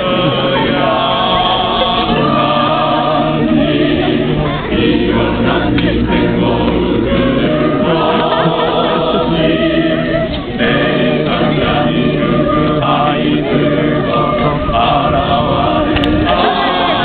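A choir singing an unaccompanied Orthodox liturgical hymn in chorus, several voices holding sustained notes together, with a brief break about ten seconds in.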